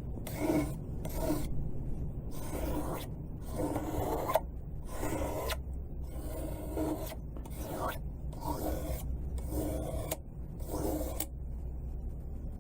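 Knife blade stroked back and forth on the fine grit of an oiled sharpening stone, a dry scraping rasp on each pass. There are about a dozen strokes at one or two a second, and they stop near the end. The strokes are raising a burr along the edge, working toward the tip.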